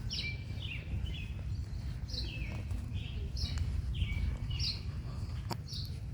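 A bird calling over and over, about once a second: each call is a short high note followed by a lower, falling slur. Beneath it runs a steady low rumble, and there is a single sharp click near the end.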